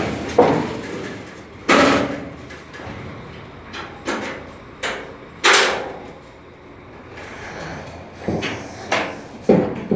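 Metal partition gates of a livestock truck's steel box body being moved and latched: a series of sharp metal clanks and bangs, about eight, irregularly spaced, each ringing briefly in the hollow steel compartment.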